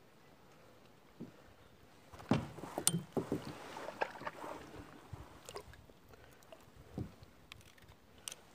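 Knocks and scrapes on a plastic kayak's hull, with some water splashing, starting about two seconds in as the angler leans over the side to lower a fish into the water. A few single knocks follow.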